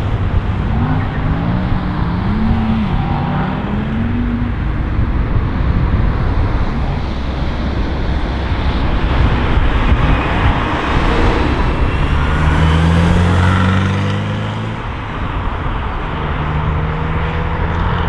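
Cars driving around a roundabout and pulling away, among them a Porsche 944 with its four-cylinder engine. Engine notes rise and fall in the first few seconds. About two-thirds of the way through, a car accelerates with a louder, rising engine note.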